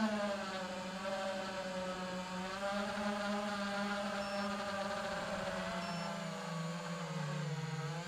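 iFlight Titan DC5 FPV quadcopter's brushless motors and propellers whining in flight, a steady buzzing pitch that sags lower for the last second or so as the motors slow.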